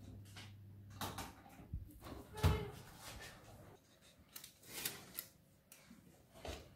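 Built-in oven door pulled open with a heavy knock, then round metal baking tins scraping and rattling over the oven's wire rack as they are drawn out, with a few clicks and knocks.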